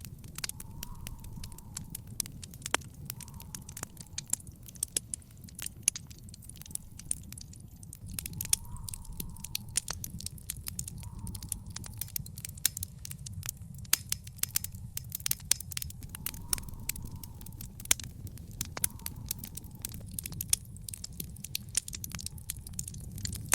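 Wood fire in an outdoor fire pit crackling, with frequent sharp pops and snaps over a steady low rumble of the burning.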